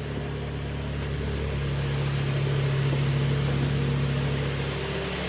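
Kia Sportage's G4KD 2.0-litre inline-four petrol engine idling steadily, freshly rebuilt after scored pistons. It runs evenly and quietly, with no knock.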